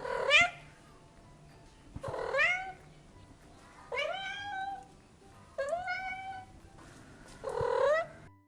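Domestic cat meowing five times, about two seconds apart, each call rising in pitch and then levelling off.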